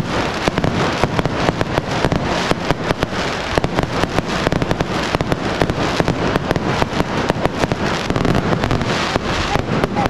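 Aerial fireworks bursting overhead at close range: a dense, continuous barrage of bangs and crackles, many every second, with no let-up.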